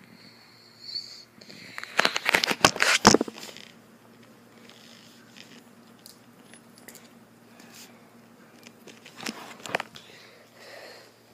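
Close handling noise: a burst of sharp clattering and rustling about two seconds in, and a shorter one near the end, as a cardboard box and a clear plastic storage box are moved right by the microphone.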